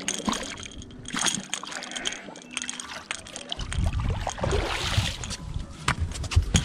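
Large flathead catfish thrashing and splashing at the water's surface as it is grabbed by hand and hauled out. About halfway through, heavy low thuds follow as the fish lands and flops on the boat deck.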